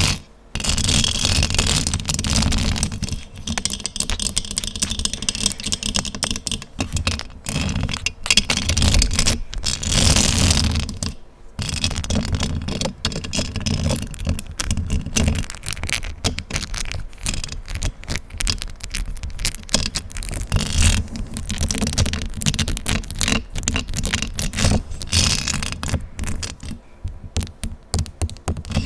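Fast, aggressive scratching and rubbing directly on a microphone: a dense run of scrapes and crackling clicks, broken by short pauses just after the start and about eleven seconds in.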